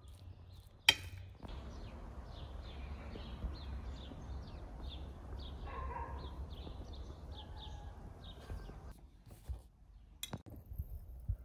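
A sharp clink of a fork on a glass plate. Then outdoor ambience with a low rumble and an animal calling in short, quick repeated calls, two or three a second, for about seven seconds. A few light clinks come near the end.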